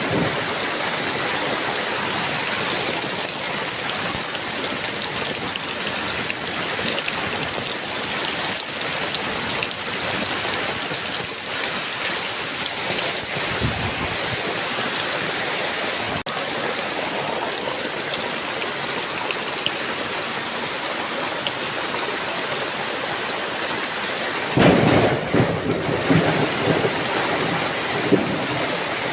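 Heavy rain pouring steadily, with a loud thunderclap and rumble near the end.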